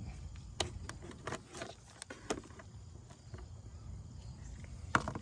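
Scattered light clicks and knocks of tools and parts being handled during work on a car's engine bay, with the loudest knock near the end.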